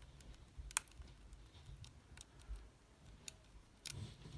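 Faint, irregular small clicks of a hook pick working the sliders inside an OnGuard Beast padlock under tension from a Z-bar wrench, feeling for a binding slider. One sharper click comes about three-quarters of a second in.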